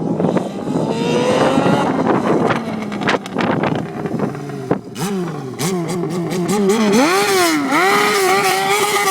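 Honda CB400 Super Four Revo's four-cylinder engine revving through its exhaust: a rising pull about a second in, then from about halfway several quick throttle blips, climbing to a high pitch held near the end.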